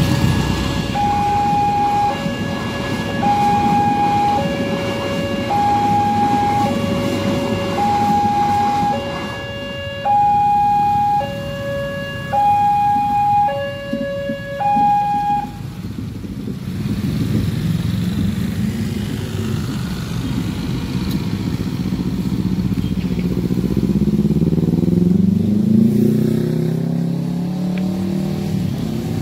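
Electronic two-tone warning alarm of a railway level crossing, a high and a low tone alternating about once a second, over the rumble of a passing train; the alarm cuts off about sixteen seconds in. Motorcycle and car engines then pull away over the crossing, one engine revving up near the end.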